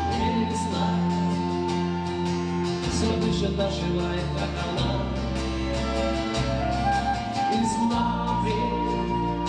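Live band playing an instrumental passage: a flute holding a melody over acoustic guitar and bass guitar.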